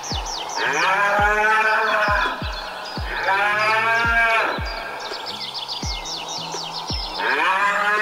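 Cattle mooing: three long, drawn-out moos, the last one starting near the end, over background music with a steady kick-drum beat.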